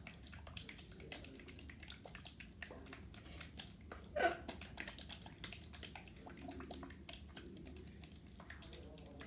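A plastic bottle of slime mix being shaken hard by hand, a fast, irregular run of small clicks and knocks. One brief louder squeak stands out about four seconds in.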